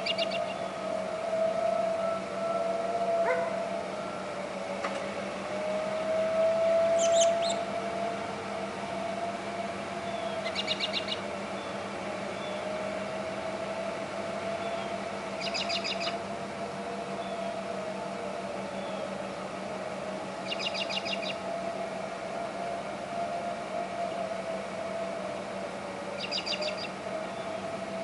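Tornado warning siren sounding a steady tone that wavers slowly in pitch. A bird sings a short rapid trill about every five seconds.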